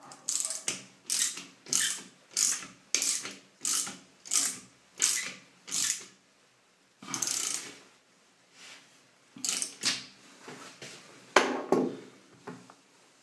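Ratchet wrench clicking in quick runs as it is swung back and forth on a brass shower-valve fitting, about nine strokes in six seconds and then one longer run. A few loose handling clicks and one sharp knock follow near the end.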